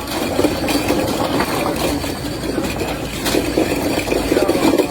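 A fishing boat's engine running steadily, with a couple of brief knocks.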